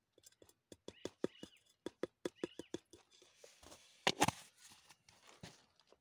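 Quick run of light knocks as a plastic jar is tapped against the rim of a small steel pot to shake powder out, about four or five taps a second. About four seconds in comes a louder clatter as the jar and its lid are handled.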